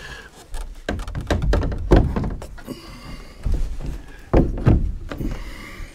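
Hollow-core fibreboard six-panel door knocking and thunking against its frame and hinges as it is set back on its hinges. A run of irregular knocks, loudest about two seconds in and again a little past four seconds.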